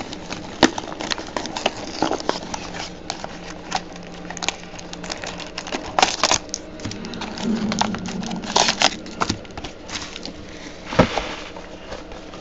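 Crinkling and rustling of plastic-wrapped trading card packs being lifted out of a cardboard box and set down, with irregular sharp taps and clicks, the loudest about halfway through and near the end.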